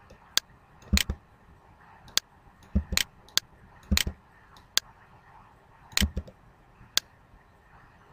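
Computer keyboard keys and mouse buttons clicking, about a dozen sharp clicks spaced irregularly, a few of them in quick pairs.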